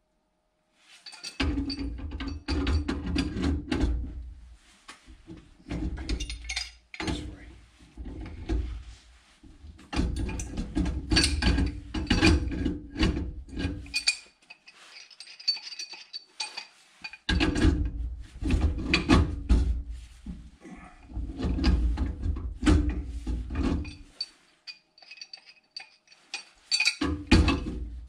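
Wrenches working threaded metal gas-pipe fittings: bouts of quick metallic clicking and scraping lasting a few seconds each, with short pauses between.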